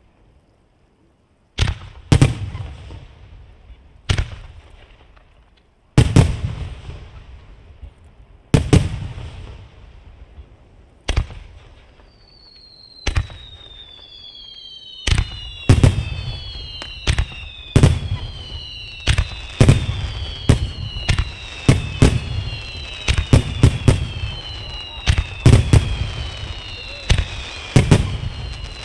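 Aerial fireworks shells bursting in sharp bangs, about one every two seconds at first. From about halfway, whistling shells climb with whistles falling in pitch, and the bangs come thick and fast in a barrage.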